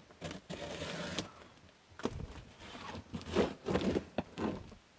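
A large cardboard box being handled with gloved hands on a workbench: a sliding, scraping stretch about half a second in, then several short knocks and rustles as it is turned.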